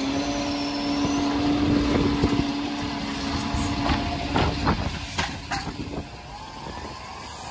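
Bucher side-loader garbage truck's hydraulic arm lifting and emptying a wheelie bin: a steady hum runs for about six seconds, with a cluster of clatters and knocks around four to five seconds in as the bin is tipped and set back down.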